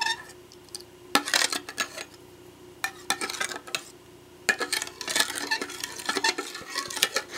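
Metal spoon stirring liquid in a stainless steel bowl, clinking and scraping against the sides and bottom in short bouts with brief pauses, busiest in the second half.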